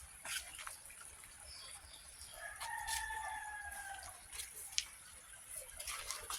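A rooster crowing faintly: one long, held call about two and a half seconds in, dipping slightly as it ends. Scattered light clicks and rustles and a steady high hiss run under it.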